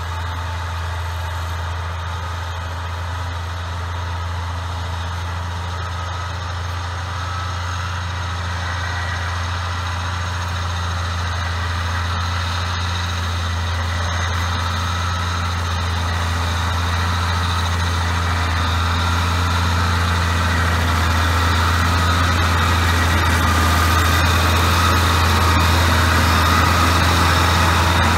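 John Deere 4250 tractor's six-cylinder diesel running steadily under load while mowing hay, with its mower running. The sound grows gradually louder as the tractor comes closer.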